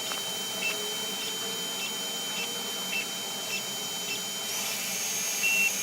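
CR-10S Pro 3D printer running its auto-leveling routine: its stepper motors give a steady high-pitched whine, with short blips repeating a little under twice a second as the head steps through the probe points. Near the end the whine shifts to a higher pitch.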